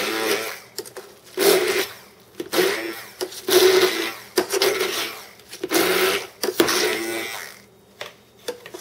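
Handheld immersion (stick) blender motor whirring in about six short bursts as it purées boiled, drained cauliflower in a stainless steel saucepan; it stops near the end.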